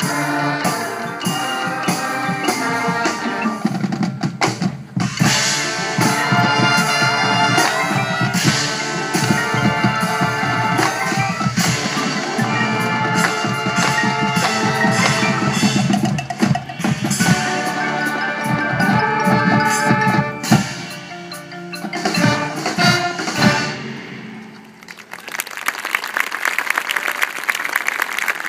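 Marching band playing, with percussion prominent and the full band in dense chords; the music breaks off about 24 seconds in and the audience starts applauding near the end.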